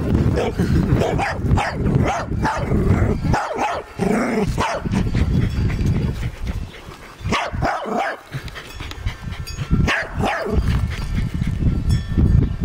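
A dachshund barking in scattered bursts, the clearest about four, seven and a half and ten seconds in, over a steady low rumble.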